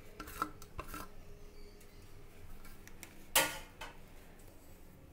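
Light clicks of a ceramic plate and fingers against an aluminium pot as fried onions are scattered over rice. About three and a half seconds in there is one louder clatter of crockery.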